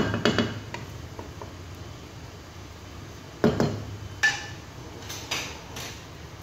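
Wooden spatula knocking against a coated wok while stirring shrimp in sauce: a few taps near the start, two sharper knocks about three and a half and four seconds in, and fainter taps after.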